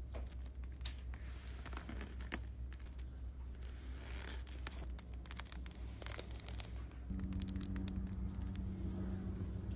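Kinetic sand crumbling and crackling as a drinking glass is pressed down into molded mounds of it: a run of small, crisp crackles and clicks. A steady low hum runs underneath, and a steady low tone joins about seven seconds in.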